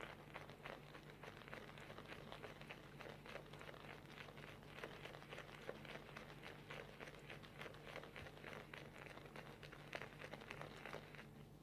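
Wet synthetic shaving brush swirled on shaving soap to load it: a faint, dense wet crackling of many small ticks, stopping near the end.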